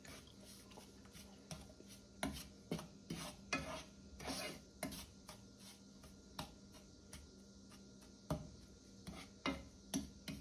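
Wooden spoon scraping and stirring granulated brown sugar in oil across the bottom of a speckled nonstick pot, in short irregular strokes. The sugar is being heated to melt it for burnt-sugar browning.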